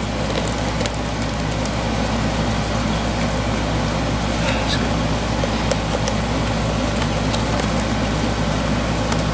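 Steady low hum and hiss of background noise, with a few faint plastic clicks and fabric rustles as the animatronic Santa's head is worked off over the loop on its neck mechanism.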